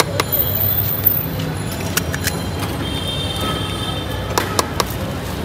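Steady hum of road traffic with scattered sharp clicks and taps from a spoon working food in a plastic bowl.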